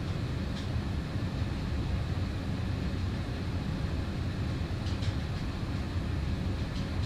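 Steady low background rumble, like a fan or room ventilation, with a few faint ticks from fingers handling small wires and parts.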